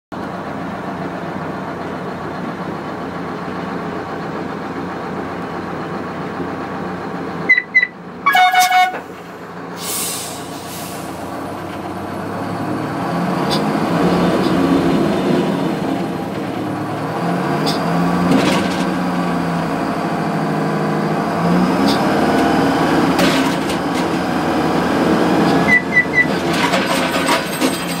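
Madill 071 tower yarder's diesel engine running, heard from inside the cab. It works harder from about twelve seconds in as the yarder reels in a turn of logs, its pitch rising and falling. After about seven seconds a pair of short high signal toots is followed by a louder blast, and two more short toots come near the end.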